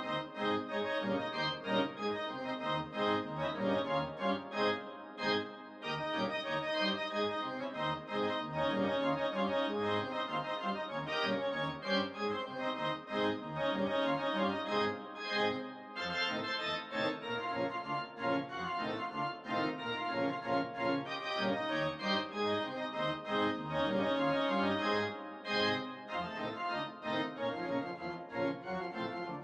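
Instrumental music score: a busy run of quickly changing notes over held chords, with a brief break about five seconds in.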